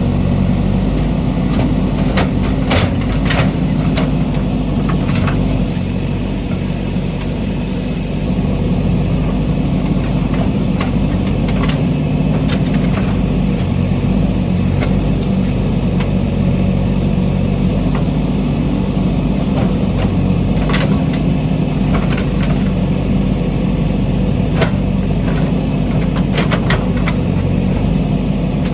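JCB backhoe loader's diesel engine running steadily, with scattered sharp knocks and clanks.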